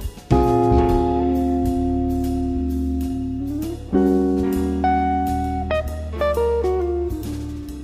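Music with guitar: long held chords over a steady bass line, moving to a new chord about four seconds in.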